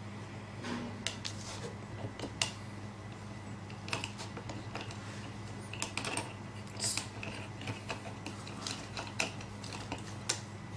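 Irregular small clicks and taps of the metal parts of a disassembled uPVC sash lock being handled while it is greased, over a steady low hum.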